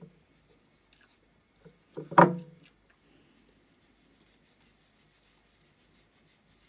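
Gritty homemade sugar scrub rubbed over skin with the fingers: a faint, fine scratchy rasping from about three seconds in. A single short, louder sound comes about two seconds in.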